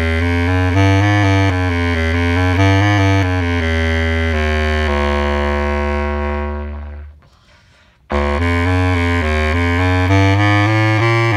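Bass clarinet playing a quick melody, about three notes a second, over a sustained low drone. It ends the phrase on a held note that fades out about seven seconds in, then after a second of quiet comes back in abruptly with the same kind of fast figure.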